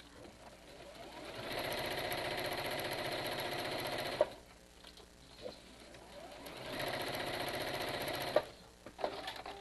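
Domestic sewing machine stitching in two runs, one of about three seconds and one of about two, stopping in between. It is topstitching the seam allowance flat beside the curved centre seam of a cloth mask, stopping partway to reposition the fabric on the curve.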